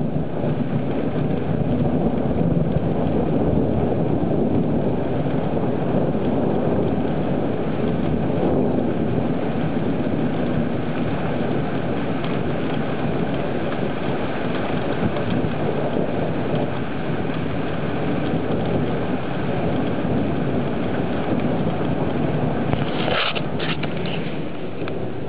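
Thunderstorm: a steady, dense rush of noise that holds on without a break, with a few short sharp clicks about 23 seconds in.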